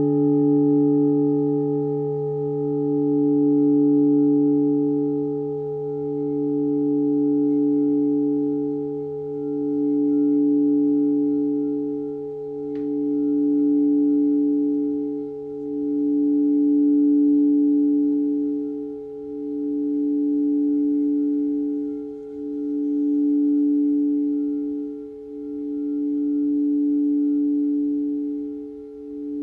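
A singing bowl ringing on after a single strike, holding a pure tone with overtones that swells and fades in a slow pulse about every three seconds, while a lower hum beneath it slowly dies away.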